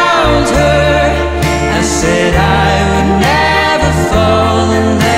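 Background music: a slow song with a gliding melodic lead over held bass notes that change about once a second.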